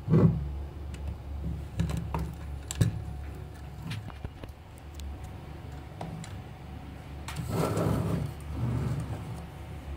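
Hard plastic toy track pieces being handled and fitted together: scattered clicks and rattles, with a longer rustling scrape of plastic a little past seven seconds.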